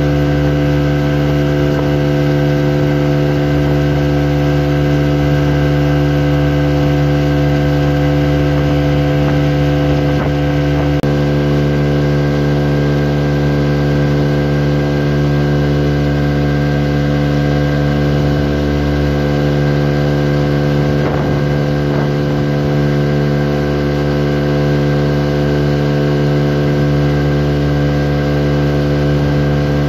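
Small fishing boat's motor running steadily at cruising speed, with a slight shift in pitch about a third of the way in.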